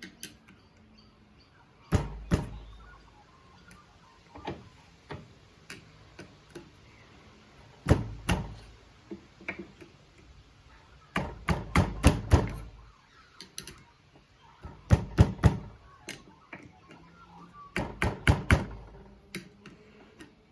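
Repeated sharp knocks, in bunches of several blows with pauses between, as the fork oil seal of a Honda XR75 K3 front fork is tapped down into the fork leg to seat it.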